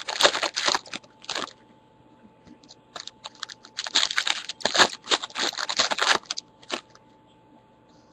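Plastic packaging crinkling and crunching as it is handled, in two bouts of rapid, irregular rustles. The second bout starts about three seconds in.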